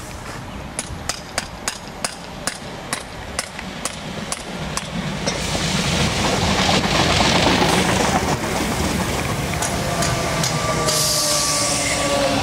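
Electric multiple-unit passenger trains: a regular series of sharp clicks, about three a second, as wheels run over rail joints, then from about five seconds a rising rumble and rush as a train runs past close by, with a steady motor whine near the end.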